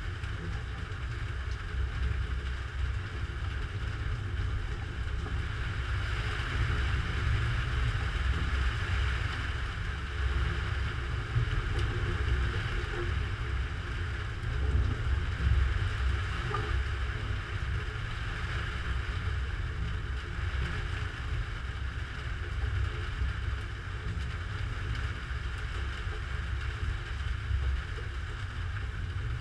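Thunderstorm noise on a GoPro's microphone: a steady low rumble with a hiss over it, mostly wind buffeting the camera, rising a little around the middle.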